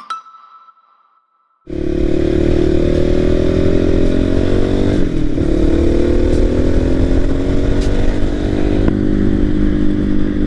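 A music track ends on a fading note. After a short gap, the Voge 300 Rally's single-cylinder engine comes in suddenly, running while under way. Its pitch dips briefly about five seconds in, then climbs slowly.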